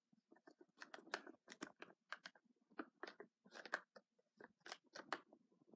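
Near silence with faint, irregular short clicks and crackles, a few each second.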